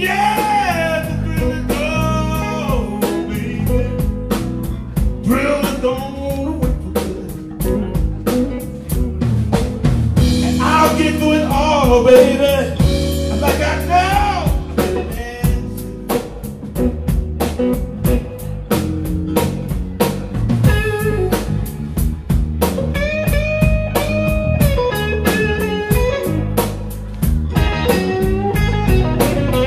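Live blues band playing a slow blues: a lead line with bent, sliding notes over bass and a steady drum beat.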